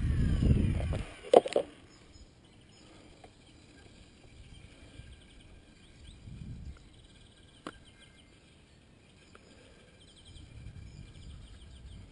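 A small electric RC helicopter motor winding down at the start under a loud rumble, then a sharp clunk about a second and a half in. After that, faint outdoor quiet with small repeated animal chirps.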